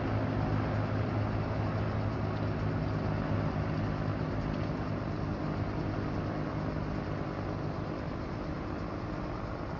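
A train running past on the line, a steady rumble with a low hum that slowly fades as it draws away.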